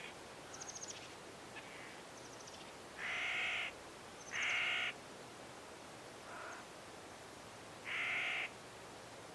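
A crow cawing three times, each harsh caw lasting about half a second, with fainter high chirps of smaller birds in between.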